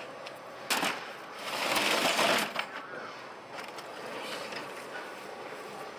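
Plastic fish crates loaded with snow crabs being handled: a knock about a second in, then a louder scraping rattle for about a second as a crate is set down and shifted, with lighter clatter after.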